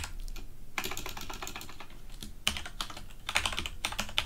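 Typing on a computer keyboard in several quick runs of keystrokes, with short pauses between the runs.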